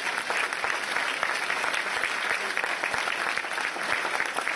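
Audience applauding, a dense steady clapping that carries on without a break.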